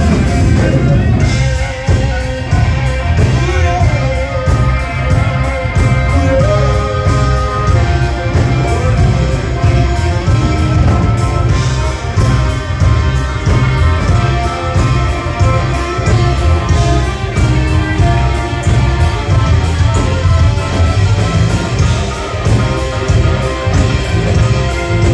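A rock band playing live, loud and steady: electric guitar over bass guitar and a drum kit.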